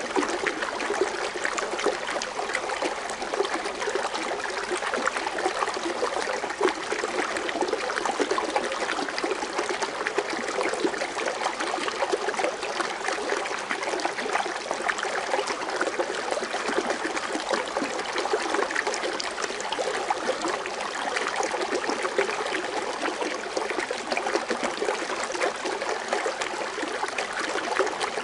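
Water fountain splashing and trickling steadily into its pool, a dense continuous patter of small splashes with no pauses.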